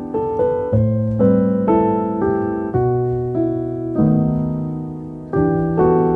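Background piano music: gentle chords and melody notes, each struck and then fading, changing every half second to a second or so.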